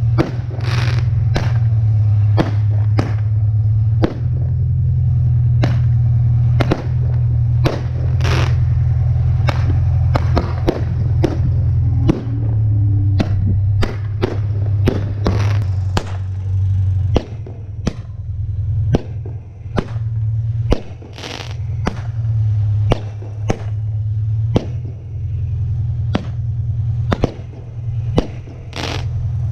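A firework battery shooting from a launcher tube on a homemade tracked robot: a rapid, irregular string of sharp pops, more than one a second, as shells are fired and burst overhead. A steady low hum runs underneath.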